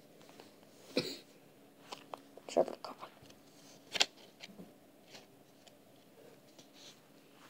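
Faint handling noise: scattered soft clicks and taps, the loudest about two and a half and four seconds in, over a faint steady hum.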